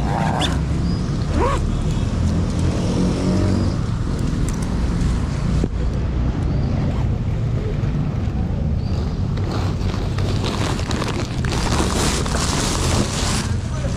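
Motorcycle engine running while riding, with wind noise on the microphone. A louder rush of noise comes through about ten seconds in and lasts a few seconds.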